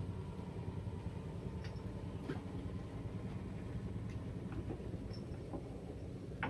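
A boat engine running steadily as a low hum, with a few faint clicks scattered through it.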